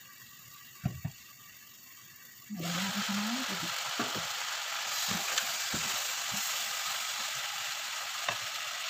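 Macaroni and vegetables sizzling in a saucepan on a gas burner. A couple of light knocks come about a second in; then, about two and a half seconds in, the glass lid comes off and a loud, steady sizzle starts, with a few utensil clicks as the pasta is stirred.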